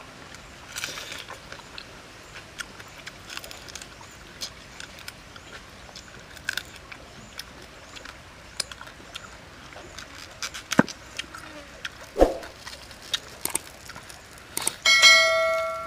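Scattered small clicks and crackles of grilled prawn shells being peeled and cracked by hand, with a couple of sharper knocks. Near the end a bright, multi-tone bell chime rings out and fades: the sound effect of a subscribe-button animation, and the loudest thing here.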